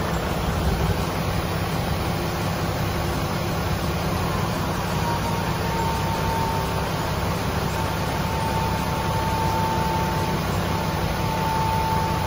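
Hino Profia truck's diesel engine running steadily while its hydraulic wing-body side panel is lowered. A thin, steady high whine joins in about halfway through.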